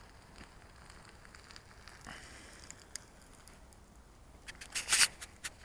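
Faint crackling and rustling from the quadcopter being handled close to the microphone, with a louder burst of rustling about a second before the end.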